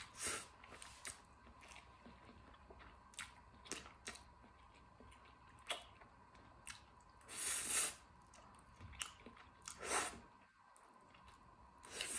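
Close-miked eating of spicy stir-fried instant noodles: wet chewing with small clicks, and a few longer slurps of noodles, about seven and a half and ten seconds in and again near the end.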